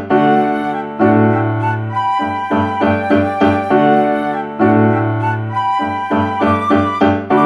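Instrumental background music led by piano, with chords struck in a steady repeating rhythm.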